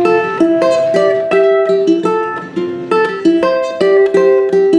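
Ukulele fingerpicked, single plucked notes ringing into one another in a steady repeating pattern, about three notes a second.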